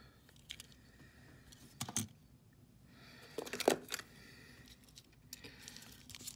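Die-cast toy trucks clicking and clattering as they are handled and one is picked up from among others on a table, a scatter of small clicks with the loudest clatter a little past halfway.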